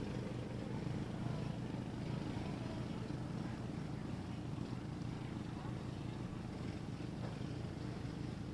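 Steady low motor drone, unchanging throughout.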